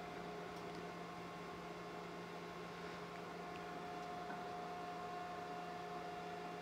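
Faint, steady electrical hum made of a few unchanging tones over a light hiss.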